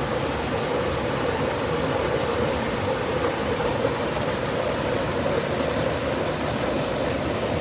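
Steady rush of fast-flowing spring water.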